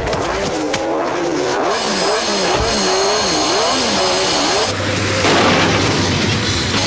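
Cartoon car-chase engine sound effects: engines revving, their pitch swinging up and down over and over, settling into a steadier drone after about four and a half seconds.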